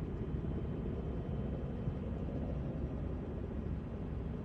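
Steady low rumble of a distant USAF HH-60 Pave Hawk helicopter in flight.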